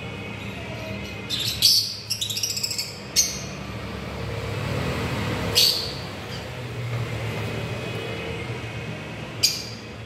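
Caged lovebirds giving short, shrill chirps: a loud call a little over a second in, a quick run of chirps around two seconds, then single sharp chirps spaced out through the rest, over a steady low hum.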